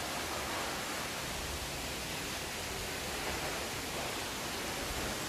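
Steady rushing hiss with no distinct events, like wind or flowing water outdoors.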